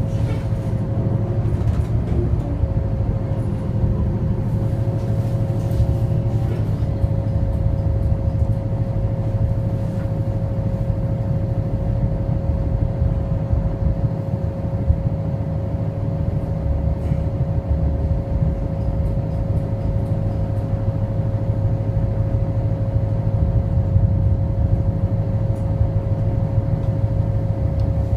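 Cabin noise inside a New Flyer DE60LFR diesel-electric hybrid articulated bus under way: a steady low drive and road drone with a whine held at one pitch, which settles in about two seconds in.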